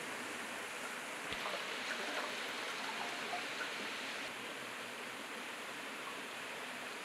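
Water trickling and dripping back into a pot as boiled bamboo shoot pieces are squeezed out by hand, with small wet ticks, a little louder for a few seconds from about a second in. Under it runs a steady hiss like running water.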